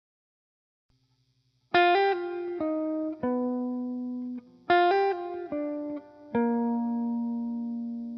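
Background music: after a moment of near silence, a plucked guitar plays a short melody of ringing single notes, in three phrases.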